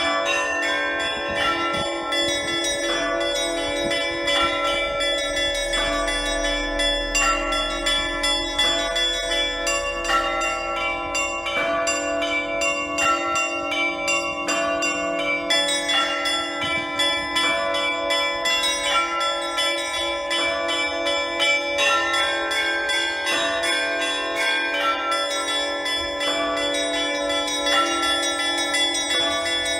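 Russian Orthodox church bells rung by a single bell-ringer: a steady stream of quick strikes on several smaller bells over the sustained ringing of a lower bell. This is festal Easter ringing.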